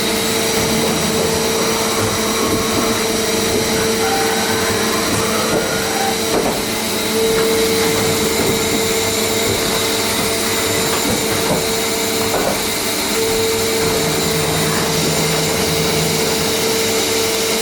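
Mazak FH580-40 CNC horizontal machining centre running: a steady mechanical whine with one constant tone over a broad hiss.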